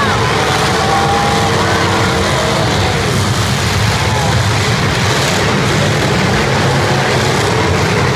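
Several demolition derby cars' engines running and revving hard together, a loud continuous rumble with revs rising and falling as the cars spin their wheels and manoeuvre.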